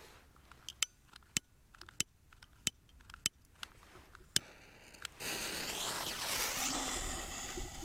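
About ten sharp clicks, roughly one every half second, from a jet torch lighter's igniter being sparked at the fuse. About five seconds in, the fuse of a China Böller A firecracker catches and hisses loudly, then fades over the last two seconds.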